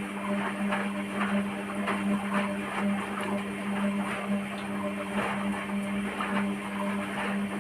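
Hotpoint-Ariston washing machine on its spin cycle: a steady motor hum with loud, uneven knocking from the drum, about two to three knocks a second, the strong knocking during spin.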